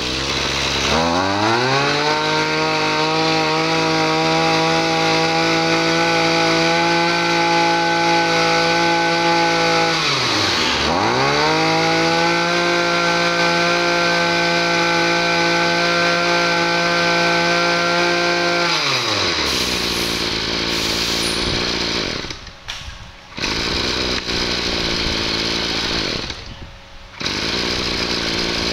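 Hitachi 22cc two-stroke brush cutter engine revving up to a steady high speed. About ten seconds in, the throttle is let off and opened again. About two-thirds through, the engine drops back to a lower, rougher running speed, with two brief drops in level near the end.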